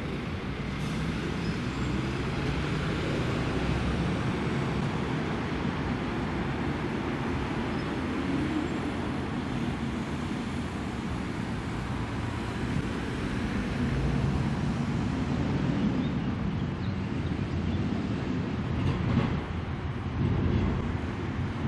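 Electric low-floor tram approaching on street track and passing close, its wheels rolling on the rails with a steady rumble. It grows louder over the last several seconds, with a few short knocks near the end.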